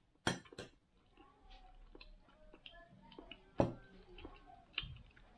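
Metal spoon clinking against a small stainless-steel bowl: two quick clicks at the start, a louder one a little past halfway and another near the end. Between them, faint chewing and mouth sounds of someone eating sticky wheat halwa.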